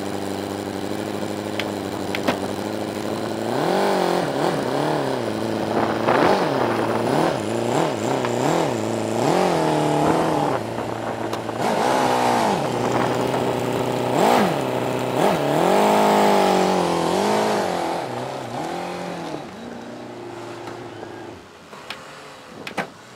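Air-cooled flat-four engine of a lowered Volkswagen Type 2 early bay bus idling steadily, then revving up and down in repeated surges as the bus pulls away, fading as it drives off. A few sharp clicks near the end.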